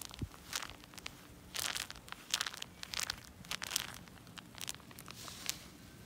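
Crunching and crackling of a thick layer of dead mayflies (fishflies) being stepped on, in irregular bursts about one every half second to second that stop about five and a half seconds in.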